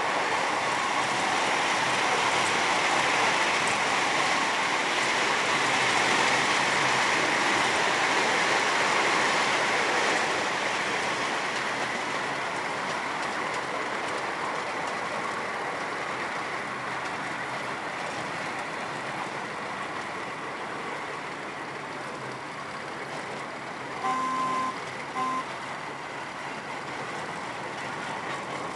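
A ridable miniature park train running along its track, a steady noise of wheels on rails that is louder for the first ten seconds and then eases off. Near the end the locomotive's horn sounds two short toots, the first a little longer.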